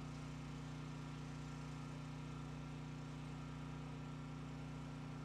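Steady low hum of an idling engine, unchanging in pitch and level.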